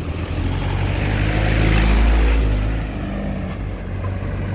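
Road traffic, with one motor vehicle passing close by: its engine rumble and tyre noise swell to a peak about two seconds in, then fade back into the general traffic noise.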